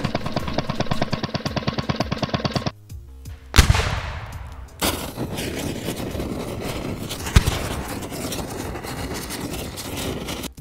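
Cartoon sound effects. A rapid rattle of clicks for under three seconds stops abruptly. After a short gap comes a loud explosion boom, followed by the steady crackle of fire, with a single thud about seven seconds in.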